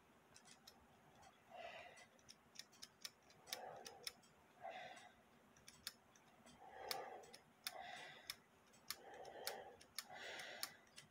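Faint, irregular small metallic clicks of brass clock-movement parts being handled and worked loose, with soft breaths in between.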